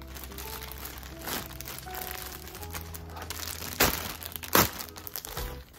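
Thin clear plastic bag crinkling and crackling as it is handled, with two loud crackles about two-thirds of the way in, under a second apart. Background music plays throughout.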